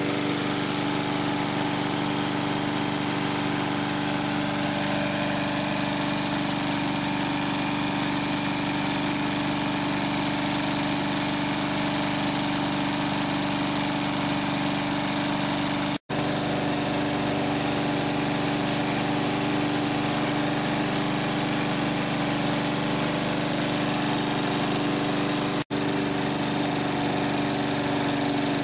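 Victa Ambassador lawn mower's four-stroke Kirby-Lauson engine running steadily at an even speed. The sound drops out for a split second twice, once past the middle and again near the end.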